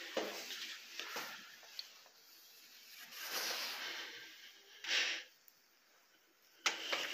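Quiet handling noises and a short breathy hiss about five seconds in, then a sharp click near the end as a metal lever door handle is gripped and pressed.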